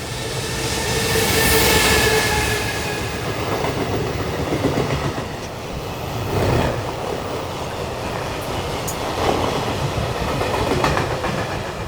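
Train running on rails: a steady rumble, with a thin whine that holds for the first few seconds and then fades.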